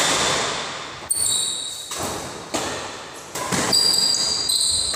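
Badminton rally: racket strings smacking the shuttlecock about once a second, each hit echoing around the hall, with shoes squeaking on the court floor between shots.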